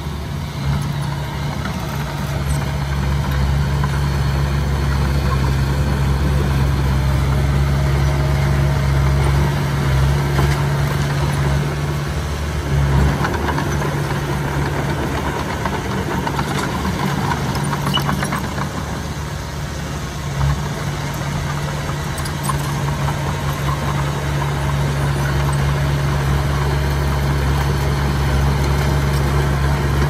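Komatsu D20P bulldozer's diesel engine running steadily under work, its note dipping and shifting briefly around ten to thirteen seconds in and again around twenty seconds in.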